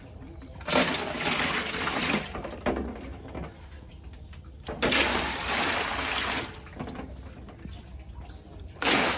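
Water gushing in three separate pours of a second or two each, a rushing splash with short pauses between.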